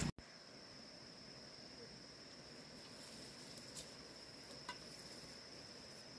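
Faint, steady high-pitched insect chorus, with two small clicks a little before the four- and five-second marks.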